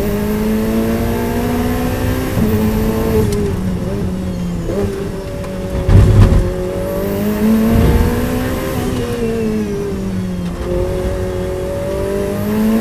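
Ferrari 488 Challenge Evo's 3.9-litre twin-turbo V8 heard from inside the cockpit at racing speed. The engine note falls as the car brakes and downshifts, then climbs again under acceleration, with a loud thump about six seconds in.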